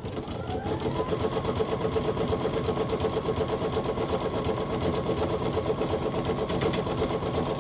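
Brother Innov-is NS1250E embroidery machine starting up, its pitch rising over the first second, then stitching at a fast, even rhythm. It is sewing a tack-down line that fixes the fabric in the hoop.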